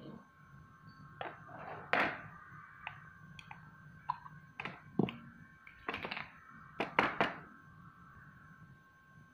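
Small metal tins of non-sag epoxy being handled: a series of irregular knocks and clinks as a tin lid is prised off and set down and a metal spoon knocks against the tin. The loudest knocks come about two seconds in and again about seven seconds in.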